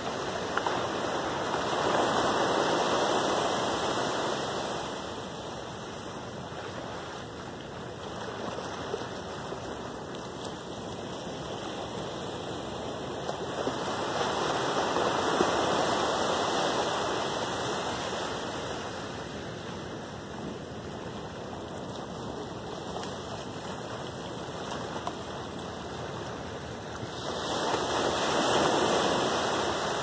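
Small ocean waves breaking and washing up a sandy beach. The surf swells three times, roughly every thirteen seconds, each surge rising and fading over a few seconds, with a steady wash of water in between.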